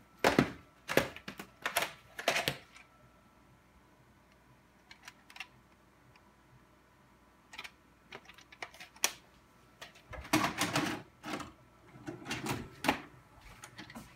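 Sharp plastic clicks and knocks of a VHS cassette being handled, then a denser run of clunks and clatter about ten seconds in as the tape is pushed into a VCR and loads.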